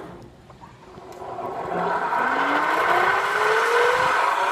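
Air rushing over the phone's microphone as the swing ride picks up speed: quiet for the first second, then a loud rushing that builds within about two seconds, with a thin whistle slowly rising in pitch.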